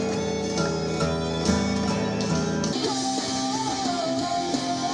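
Guitar-led music with strummed chords; about two and a half seconds in the music changes abruptly to a held low note under a wavering higher melody line.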